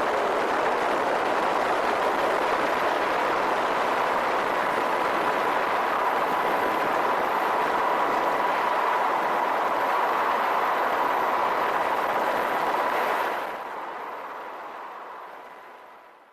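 Steady noise of an MH-60S Seahawk helicopter's engines and rotor with a faint steady whine. It drops sharply about thirteen seconds in, then fades out.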